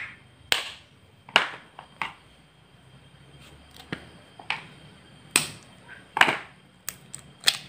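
About ten sharp, irregular taps and clicks as a duck egg's shell is knocked against a plastic scoop and a knife blade to crack it open.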